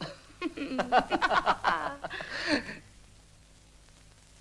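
A man and a woman laughing softly together for about three seconds, the laughter dying away near the end.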